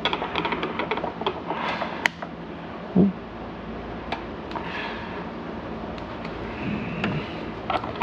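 Repair handling noise on a canister vacuum: scattered light clicks and taps, with one dull knock about three seconds in, over a faint steady low hum.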